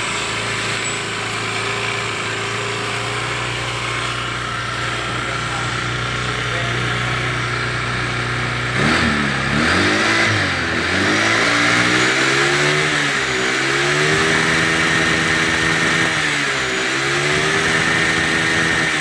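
Honda Vario scooter's single-cylinder engine idling steadily, then revved up about halfway through, engine speed rising and dipping a few times. It is being run to check the freshly repaired CVT, which sounds really smooth.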